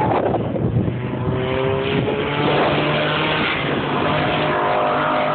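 Engines of cars driven hard on a race track, heard from trackside at a distance. The engine note rises and falls as the cars are driven through the corners.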